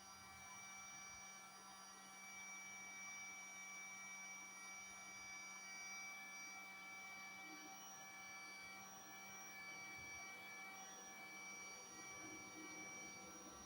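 Heat gun running: a faint, steady hum and whine that holds one pitch throughout.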